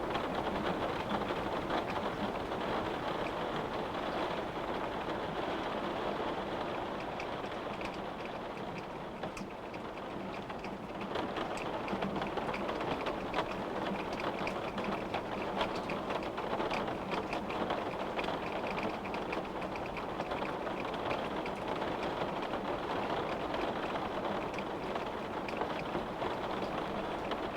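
Steady rain falling, drops pattering and ticking on a window pane.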